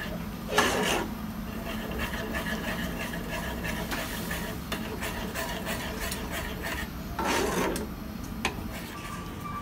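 Large spoon stirring and scraping a thick cheese-and-cream sauce around a small saucepan, with two louder scrapes, one about half a second in and another about seven seconds in.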